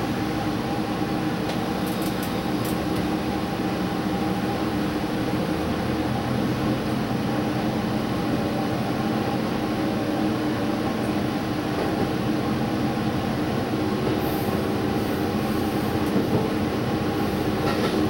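Diesel limited-express train running as it pulls out of a station and gathers speed, heard from inside the front observation car: a steady drone with tones that rise slowly, and a few faint clicks.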